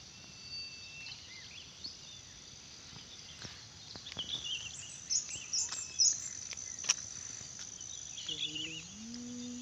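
Outdoor village morning ambience: birds chirping in short scattered bursts over a steady high-pitched insect drone. A distant voice comes in near the end.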